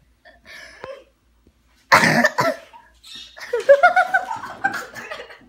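A person coughs loudly about two seconds in, then a voice makes a pitched sound that rises.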